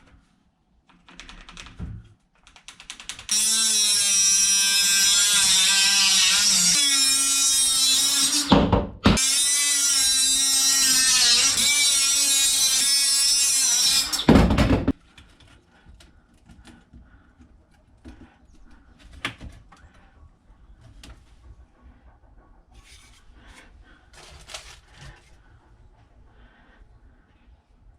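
A power tool motor running in two long spells of about five seconds each, split by a short break, its pitch stepping up partway through the first spell. It is cutting Wiremold raceway to measured lengths. Light clicks and knocks of handling follow.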